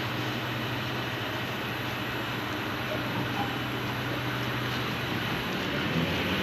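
EP2D direct-current electric multiple unit running: a steady rumble and hiss with a low hum, growing slightly louder near the end.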